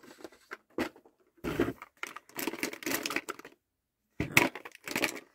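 Small cosmetic product packaging being handled and opened by hand: irregular clicks and rustles, with a sharp click about a second in and bursts of handling noise in the middle and near the end.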